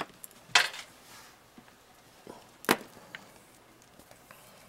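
A few sharp, short clicks and knocks: the strongest right at the start, about half a second in and nearly three seconds in. Faint room tone lies between them.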